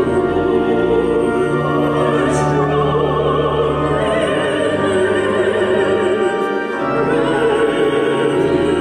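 Music: voices singing with wide vibrato over held instrumental chords, with a brief dip in loudness near the end.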